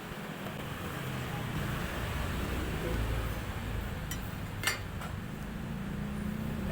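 Wood planing machine running with a steady motor drone that shifts in pitch about three seconds in, with a sharp click near the middle.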